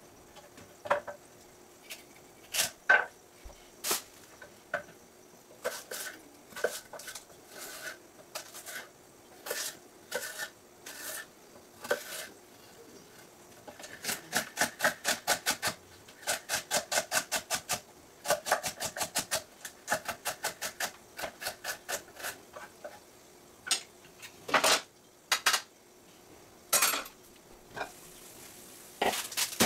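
Kitchen knife chopping on a wooden cutting board. Single cuts at first, then fast, even runs of chopping at about five strokes a second through the middle, and a few more cuts near the end.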